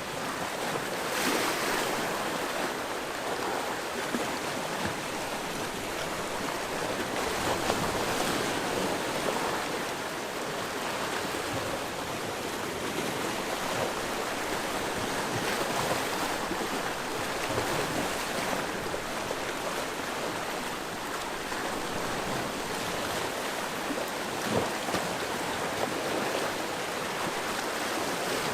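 Sea waves washing against a rocky shore, a continuous rush of surf that swells and eases as each wave comes in.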